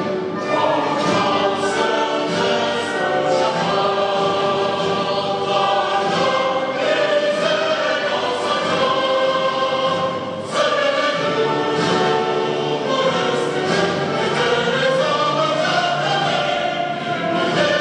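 Recorded choir singing with an orchestra, played through a hall's loudspeakers. There is a brief dip about ten seconds in, then the music carries on.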